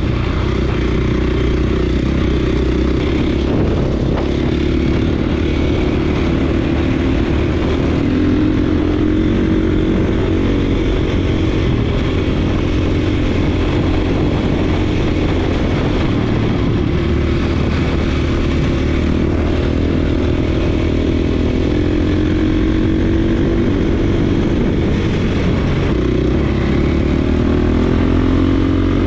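Single-cylinder dirt bike engine running under way at steady trail speed, its revs wavering slightly up and down.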